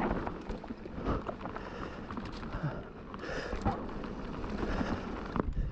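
Mountain bike riding down a rocky trail: tyres rolling over rock and gravel with a steady stream of knocks and rattles from the bike over the bumps, and wind on the microphone.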